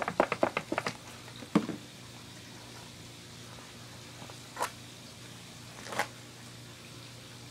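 Thin plastic 2-liter soda bottle crackling as it is squeezed rapidly by hand, about six crinkles a second, pumping the smoke out and fresh air in. The crinkling stops about a second in, and a few single crackles follow, about one and a half, four and a half and six seconds in.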